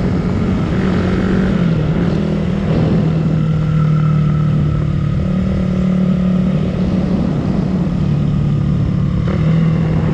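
Suzuki Raider 150 Fi motorcycle engine running steadily under way, its note dipping lower about two seconds in and again near the end, rising a little in between as the throttle changes.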